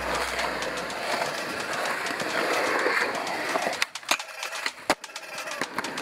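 Skateboard wheels rolling on smooth concrete, then a few sharp wooden clacks about two-thirds of the way through as the board is popped into an ollie and lands, after which the rolling carries on more quietly.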